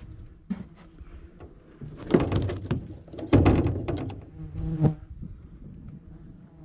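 An insect buzzing close to the microphone, with several loud knocks and rustles in the middle of the stretch.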